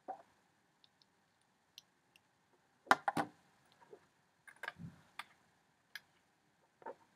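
Irregular small clicks and knocks of alligator clips and small components being handled on a work surface, the loudest a double clack about three seconds in and a cluster of taps a couple of seconds later.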